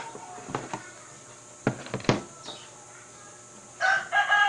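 A few sharp clicks and knocks of parts being handled, then near the end a rooster starts crowing loudly, the loudest sound here.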